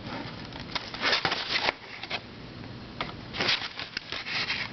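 Handling noise from puzzles and their boxes being moved on a shelf: short bursts of rustling and light clicks in two clusters, one about a second in and one in the second half.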